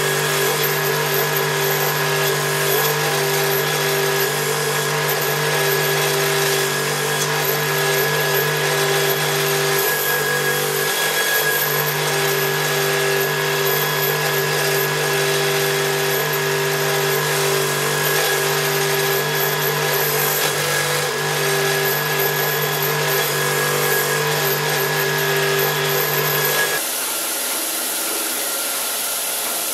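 Belt grinder running with a steady motor hum while a steel longsword blade is ground against the belt, the grinding hiss rising and falling as the blade is worked. About 27 seconds in, the sound switches abruptly to a quieter, steadier whir of another running belt grinder.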